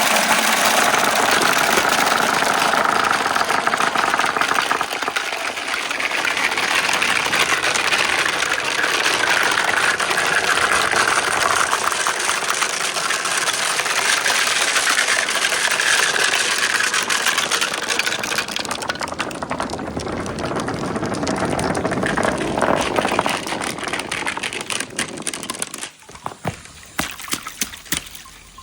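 Glass marble rolling and rattling down a plastic marble-run track with water flowing through the course, a continuous clattering rumble. Near the end it dies away into a few scattered clicks.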